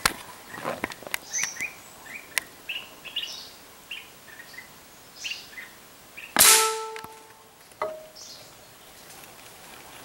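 Small birds chirping in the canopy with short, rising calls, then a single loud gunshot from a hunting gun fired upward about six and a half seconds in, followed by a briefer sharp sound about a second later.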